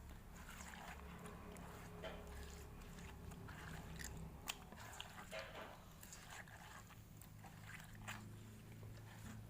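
Faint room tone with a steady low hum and scattered small clicks and ticks.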